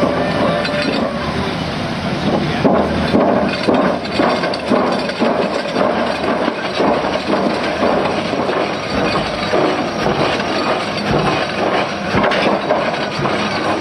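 Liebherr 44-510 rotary drilling rig at work: a dense, irregular clatter of metallic knocks and clanks over a continuous low rumble.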